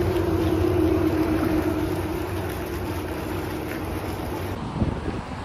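A motor running with a steady hum that slowly fades, then one short knock near the end.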